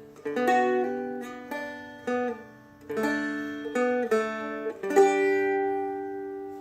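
Seagull Merlin M4, a four-string fretted dulcimer-style instrument, strummed in a short melodic phrase: a run of chords over droning strings, the last one struck about five seconds in and left to ring and fade.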